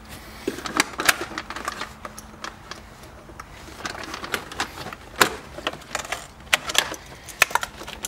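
Irregular clicks, taps and knocks of plastic interior trim being handled and fitted back into place on a C5 Corvette's centre console, with a few louder snaps.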